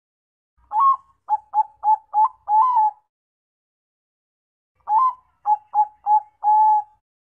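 Bangkok-strain zebra dove (perkutut) cooing its song twice. Each phrase opens with a note, runs into a quick series of short clipped coos and ends on a longer held coo.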